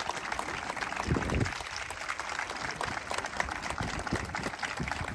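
Crowd applauding: a dense, even crackle of many hands clapping, with a brief low rumble about a second in.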